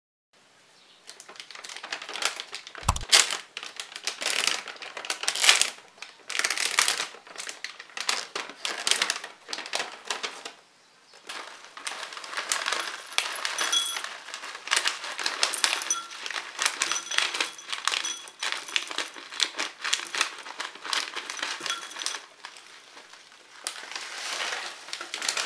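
A plastic granola pouch crinkling as it is handled and tipped, with granola clusters rattling into a white ceramic bowl in uneven bursts. It starts about a second in.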